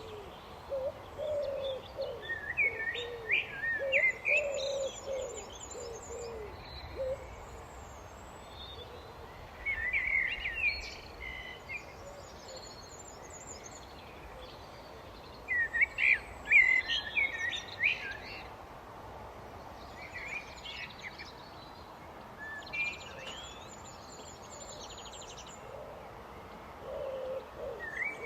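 Common blackbird singing: separate fluty phrases every few seconds, some ending in a high twitter, with fainter chirps from other birds between them. A lower repeated call from another bird runs through the first seven seconds and comes back near the end.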